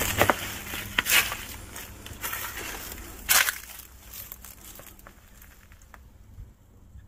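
Dry leaves, grass and twigs crunching and crackling underfoot in irregular steps. The sharpest crunches come about a second in and about three seconds in, then die down.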